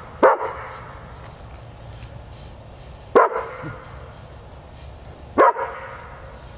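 A dog barking three times, single sharp barks a few seconds apart: one right at the start, one about three seconds in and one near the end.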